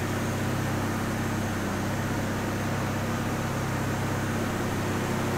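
Steady mechanical drone of machinery running in a dynamometer cell: an even hiss with a low, constant hum beneath it, unchanging throughout.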